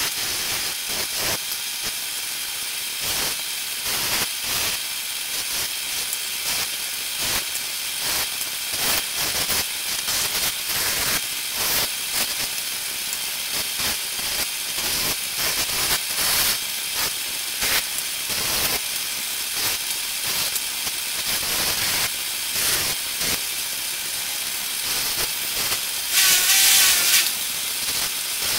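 Wire brush wheel spinning in a drill press as small rusty motor parts are held against it to clean them: a steady scratching hiss that swells and eases unevenly as each part is pressed in and turned. Near the end there is a louder squealing scrape lasting about a second.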